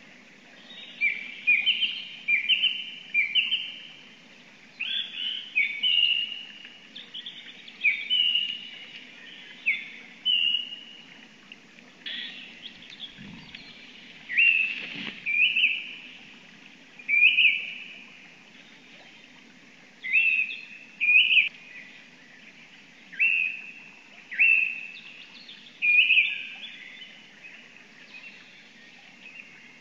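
A songbird singing: short phrases of a few clear whistled notes, repeated every second or two, over a faint steady low hum.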